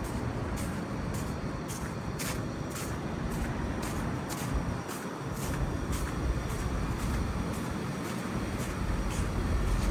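Footsteps crunching on snow, about two steps a second, over a steady low rumble of city road traffic that swells near the end.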